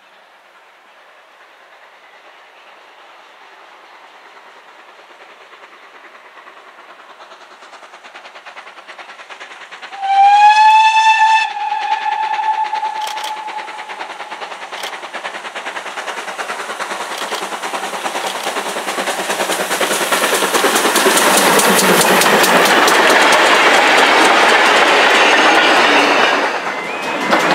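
Steam locomotive approaching and passing. It gives one short whistle blast, rising in pitch at its start, about a third of the way in. Then the engine's exhaust and the wheels' rapid clatter on the rails grow loud as it runs by.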